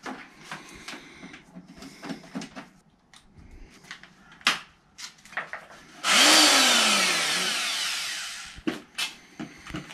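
Handheld electric paddle mixer (a drill-type concrete mixer) switched on briefly about six seconds in: the motor starts suddenly, then winds down over about two seconds as its pitch falls. Before it come clicks and knocks from handling the tool and its cord.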